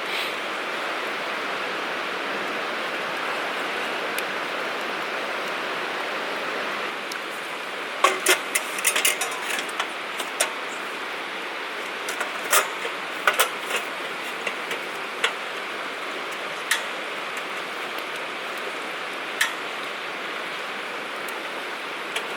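Open wood campfire burning with a steady hiss, broken by sharp pops and crackles that come thick from about a third of the way in and thin out toward the end.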